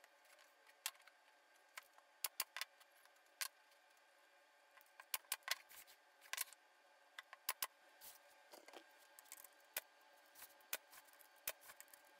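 Light, sharp clicks and knocks of wooden frame strips being handled and set together on a workbench, scattered irregularly, some in quick clusters.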